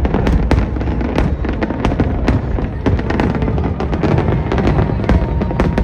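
Fireworks going off in quick succession: many sharp bangs and crackles, several a second, over a continuous low rumble of booms.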